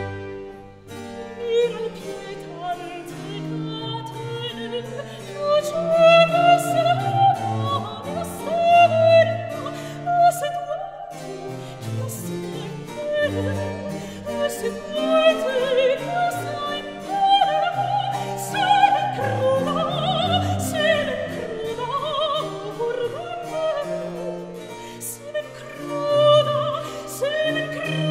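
Classical background music: an operatic voice singing with vibrato over an orchestral accompaniment.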